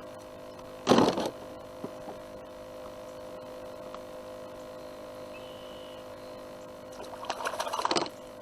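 A short, loud splash of water about a second in, as a caught catfish is let go back into the creek, then a crackling, rustling handling noise near the end. A faint steady hum runs underneath.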